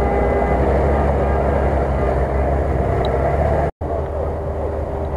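Off-road 4x4 engine running steadily at a low, even pitch as the vehicles crawl through deep swamp water. The sound drops out completely for an instant a little over halfway through.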